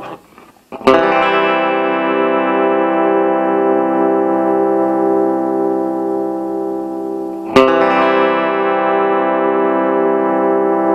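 Solid-body electric guitar on its bridge pickup, played through a Fender Acoustasonic DSP Junior solid-state amp: the ringing chord is damped at the start, then a chord is strummed about a second in and again about two-thirds through, each left to ring.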